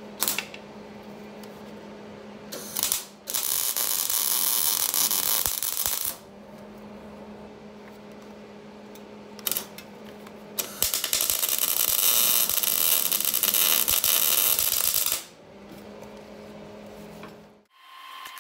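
Arc welder tack-welding a catalytic converter into a steel exhaust pipe: two long bursts of loud crackling hiss, about three and four and a half seconds long, each with a short burst just before it. A steady low hum runs between the bursts.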